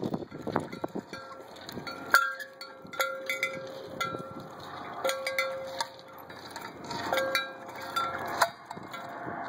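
Lineworker's climbing gaffs stepping down a wooden utility pole: a sharp knock about once a second, each followed by a brief metallic ring like a struck bell.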